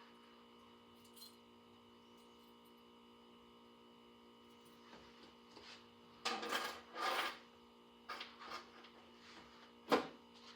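Hands handling a fire alarm pull station on a demonstration board: two rubbing, scraping bursts about six to seven seconds in, a few light clicks, then one sharp click near the end. A low steady electrical hum with several fixed tones runs underneath.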